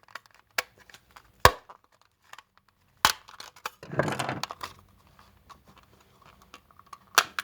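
Blunt knife prising apart the plastic case of an old Sky TV remote: a handful of sharp plastic clicks and snaps, with a longer stretch of scraping and crackling about four seconds in.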